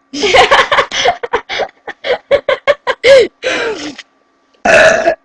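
Girls laughing in a quick run of short giggling bursts, about four or five a second, with a loud short vocal burst near the end.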